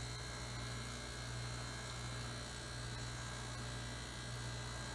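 Steady low hum of a fry ice cream machine's refrigeration compressor running to chill the steel pan.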